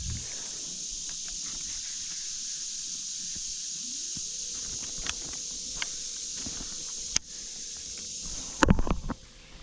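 Steady high-pitched hiss of outdoor creek ambience with a few sharp clicks, then a loud knocking rattle near the end.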